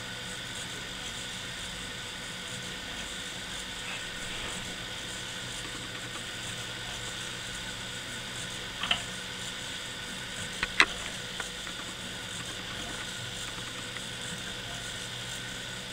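Hobby servos of a 3D-printed Arduino quadruped robot running steadily with a whine and hum as it walks. A few sharp clicks come about halfway through, one louder than the rest, as the plastic legs knock on the desk.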